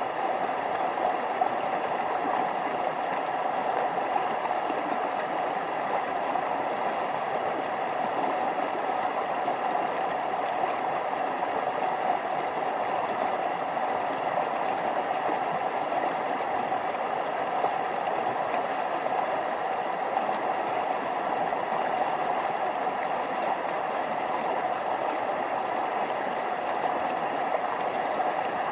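Stream water flowing over small waterfalls, a steady rushing babble.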